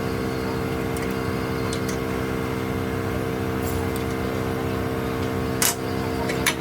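Manual lathe running with a steady, even hum, with two sharp clicks near the end.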